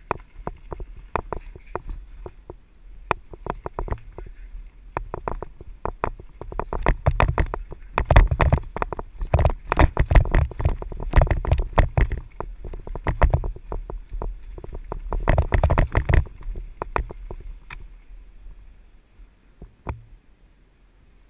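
Mountain bike clattering and rattling as it rolls fast over a rough dirt downhill trail, with wind noise on the mounted camera. The clatter is heaviest through the middle and dies away near the end as the bike slows.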